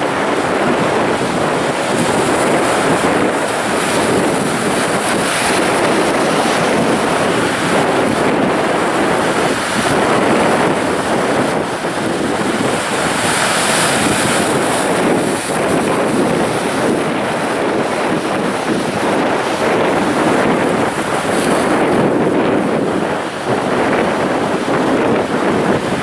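Sea surf breaking and washing over shore rocks: a continuous rushing wash that swells as each wave breaks and eases as it drains back, with the biggest breaker about halfway through.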